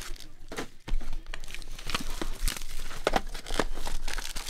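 Plastic wrapping on Panini Select basketball card packs and boxes being torn open and crinkled by hand: a dense run of sharp crackles.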